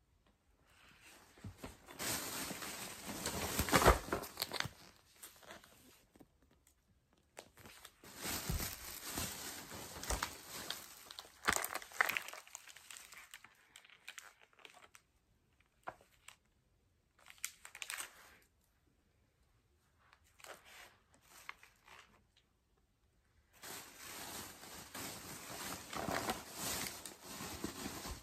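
Plastic packaging and shopping bags crinkling and rustling as items are handled, in bursts of a few seconds with quiet gaps between.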